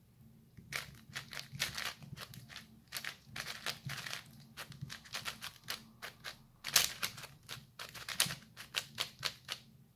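WuQue 4x4 speed cube, new and Angstrom-lubed, being turned rapidly by hand: quick, irregular plastic clicks and clacks of the layers turning, with one louder clack about seven seconds in.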